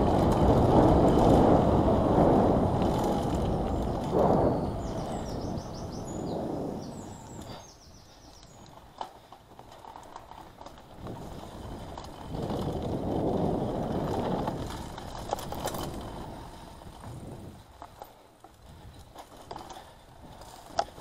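Mountain bike riding fast over a rough lane and dirt trail, heard through an action camera's microphone: rumbling tyre and wind noise with rattles and clicks from the bike. It is loudest for the first few seconds and again around the middle, dropping to a quieter rattle between.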